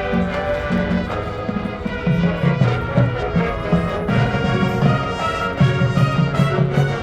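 Marching band playing a show passage: brass ensemble over a sustained low line, with percussion keeping a steady beat.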